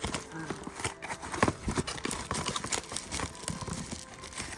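Beechwood cooking utensils knocking and clacking as they are handled and pulled from their packaging: a run of irregular light wooden taps.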